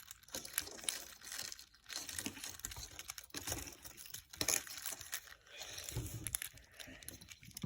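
Packaging crinkling and rustling by hand, with scattered small clicks and taps, as small puzzle cubes are unpacked.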